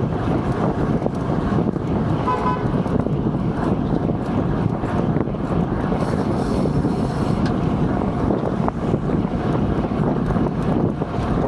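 Heavy wind rushing over the microphone of a bicycle moving fast through city traffic, with the steady rumble of cars alongside. A short car-horn toot sounds about two seconds in.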